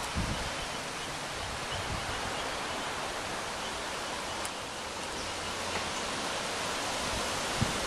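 Steady outdoor background hiss, even and unchanging, with a faint click about four and a half seconds in and a soft thump near the end.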